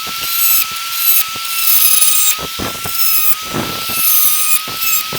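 RotoZip spiral-cut rotary tool running with a steady high-pitched whine, its bit grinding and scraping as it cuts the old cone out of a stock GM car speaker, the whine dipping slightly each time the bit bites.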